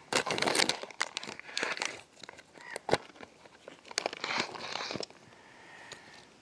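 Plastic pouch of a 24-hour ration pack being torn open at its heat-sealed top, the plastic crinkling as it is pulled apart and handled, with one sharp crack about three seconds in.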